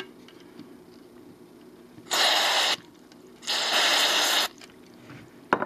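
Two short hisses of DeoxIT contact cleaner sprayed from an aerosol can into a switch that is not working right, the first about half a second long, the second about a second. A sharp click follows near the end.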